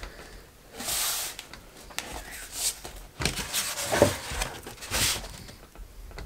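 Foam board panels being folded and handled on a wooden table: several short swishes and scrapes of board against board and table, with a sharper knock about four seconds in.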